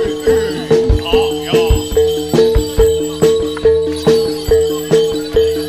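Gamelan-style barongan accompaniment music: two alternating pitched notes repeat on a steady beat of about two and a half strokes a second, over drum strokes.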